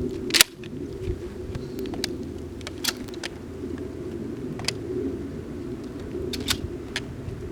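A few short, sharp clicks over a steady low hum, the loudest click about half a second in; no gunshot.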